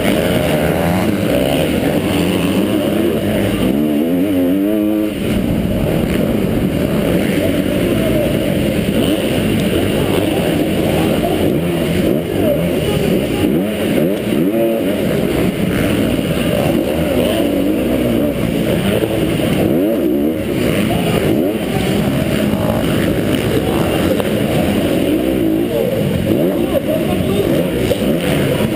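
Motocross bike engine revving hard and easing off in quick cycles as it is ridden around a dirt track, heard from a helmet camera on the moving bike, with a clear rising rev about four to five seconds in.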